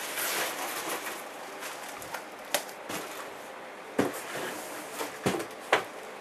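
Cardboard shipping box opened with a rustle, then a plastic-wrapped boxed DVD set lifted out and handled, its packaging giving several sharp knocks and crinkles.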